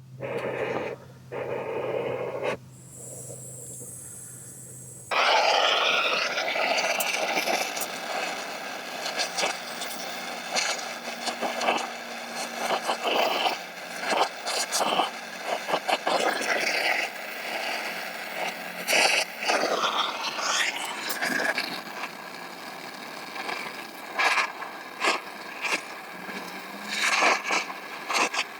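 Steady hiss of gas with frequent scrapes, clicks and knocks of metal tools on copper refrigerant lines, as the lines are purged with nitrogen and brazed onto an AC condenser coil. A low hum under the first few seconds cuts off suddenly about five seconds in.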